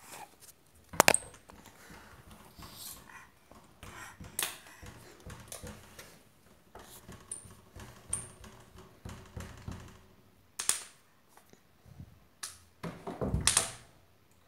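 Irregular taps and knocks with quiet stretches between them, the loudest about a second in and a run of them near the end.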